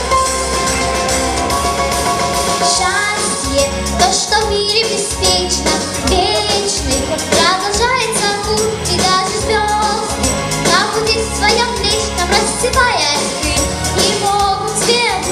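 A child's solo voice singing a pop song over a recorded backing track. The first couple of seconds are instrumental. The voice comes in about two and a half seconds in, with wavering held notes and sliding runs.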